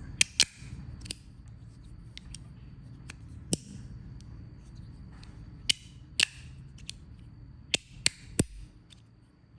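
A fidget toy being worked by hand: irregular sharp clicks and snaps, two right at the start, then single ones and pairs, ending with three in quick succession near the end.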